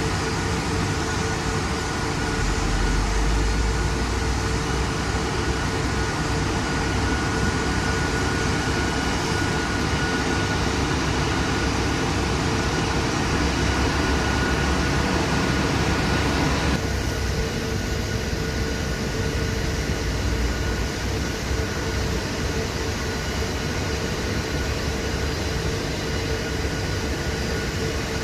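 Steady roar and hiss of gas at a petrochemical plant, with two constant hum tones running through it. About seventeen seconds in, the high hiss drops away suddenly and the roar turns duller.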